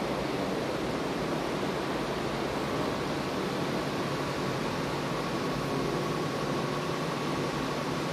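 Steady, even rushing noise with no clear events, and a faint thin whine that comes in about two and a half seconds in.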